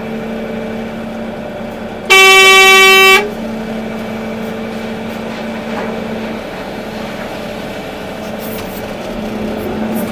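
Volvo EC380D excavator's diesel engine running steadily, with one loud horn blast about a second long starting about two seconds in.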